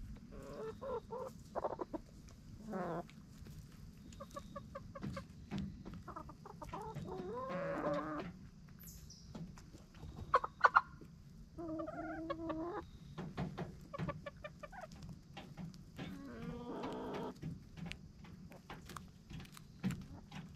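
Backyard chickens clucking on and off as they feed, with one longer, drawn-out call about seven seconds in. Sharp taps of beaks pecking at the ground are scattered through, the loudest a little after ten seconds.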